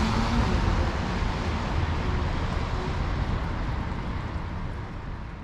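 Steady rush of traffic and tyre hiss on a wet city street, with a low rumble of wind on the microphone, slowly fading out near the end.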